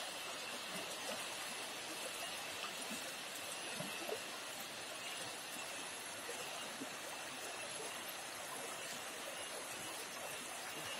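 Fast-flowing river rushing steadily, with small splashes and gurgles over the rush.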